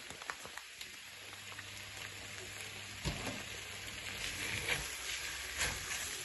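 A chicken and egg-noodle stir-fry sizzling in a hot pan with a steady crackling hiss, with a few clicks and a couple of soft knocks, one about halfway through and one near the end.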